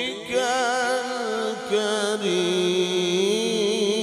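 Man reciting the Quran in the melodic tajweed style, one continuous ornamented phrase with a wavering pitch. About two seconds in he drops to a lower, long-held note that keeps a slow waver.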